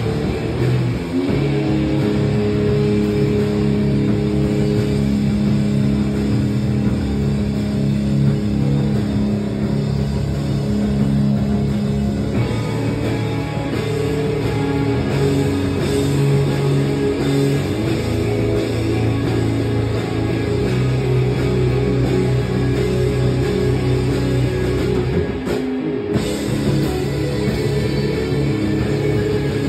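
Live rock band playing loud: distorted electric guitars holding chords over electric bass and a drum kit, with the chord changing about twelve seconds in and a momentary drop near the end.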